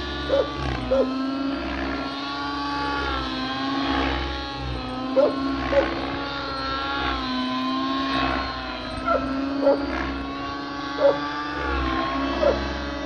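Nitro-powered RC helicopter in flight: the engine and rotor make a steady whine whose pitch wavers up and down as it manoeuvres. Short, sharp pops, often in pairs, stand out every few seconds.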